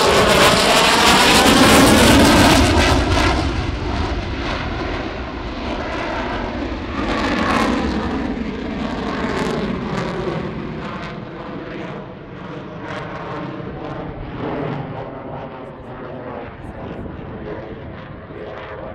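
General Dynamics F-16 Fighting Falcon's single jet engine, loud as the fighter passes, loudest in the first three seconds and then fading slowly as it climbs away, with a sweeping, shifting tone.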